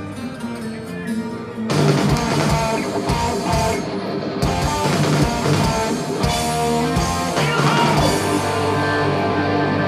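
A heavy metal band playing live. A guitar part plays alone, then the full band with drum kit and distorted guitars comes in about two seconds in.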